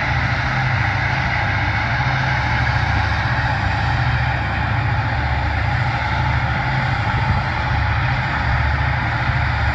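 Towboat's diesel engines droning steadily as a low rumble, with a steady hiss over it.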